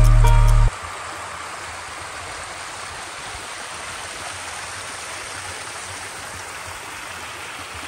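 Background music that cuts off suddenly just under a second in, then water flowing steadily along a narrow stone channel.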